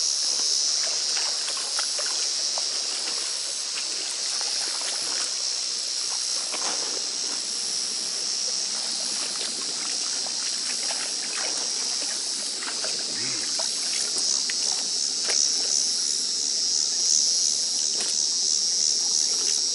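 A steady high-pitched insect chorus, with water splashing and trickling and small irregular knocks as hands work a thick mat of pond algae in shallow water.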